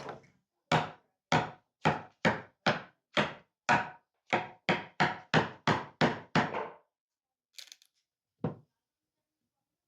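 A chisel being struck repeatedly into a wooden ladder rung to chop out a notch: about fourteen sharp knocks at two to three a second, each with a short ring, then two lighter taps a little later.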